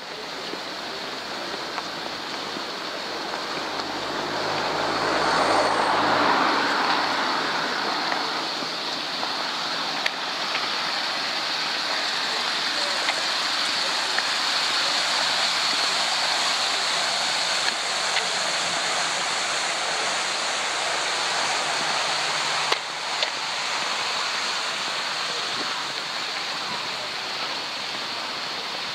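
Steady rushing noise of wind on the microphone of a moving camera, with a motor vehicle passing about five seconds in.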